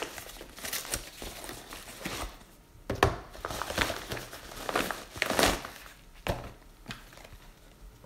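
Yellow padded mailer envelope crinkling and rustling in irregular bursts as it is opened by hand, with a couple of sharper crackles about three and five seconds in.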